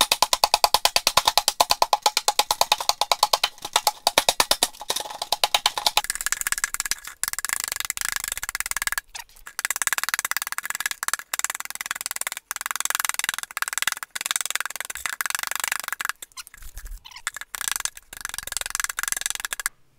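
Heavy hammer pounding dried soil clods in a plastic bucket: a fast, steady run of ringing knocks that turns to a grittier, crunchier pounding about six seconds in, with a few brief pauses.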